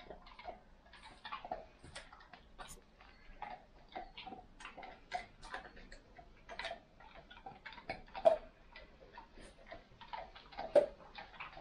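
Irregular light clicks and taps, a few a second, with two sharper, louder knocks about eight seconds in and again near the end.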